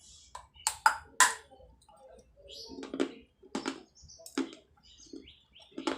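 A small fired clay pot being bitten and crunched with the teeth: a run of sharp, irregularly spaced cracks and crunches, with softer chewing between them.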